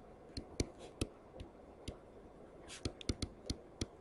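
Stylus tip tapping and scratching on a tablet screen while words are handwritten: a string of faint, sharp clicks, a few a second, with a short scratch of the tip late on.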